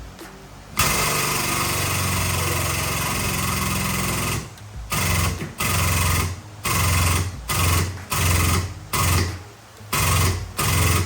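A workshop tool running in one continuous stretch of about three and a half seconds, then in about eight short bursts, one after another.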